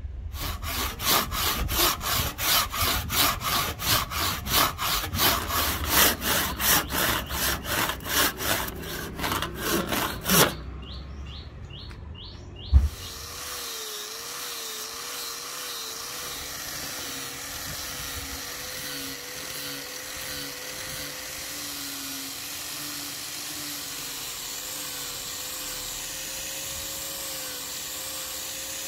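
Rhythmic back-and-forth strokes of a hand tool working on wood, about two to three a second, stopping abruptly; a single sharp knock follows. Then an electric polisher with a foam buffing pad runs on the rosewood handle: a steady hum whose pitch wobbles at first, then settles.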